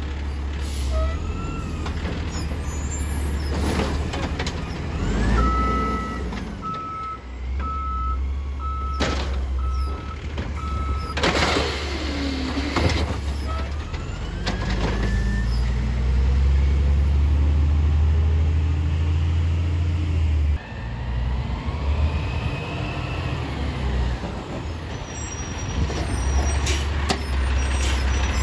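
Automated side-loader garbage truck at work: its diesel engine runs throughout and revs up hard for a few seconds past the middle as the hydraulics work. In the first half comes a run of about ten evenly spaced beeps, with several sharp air-brake hisses.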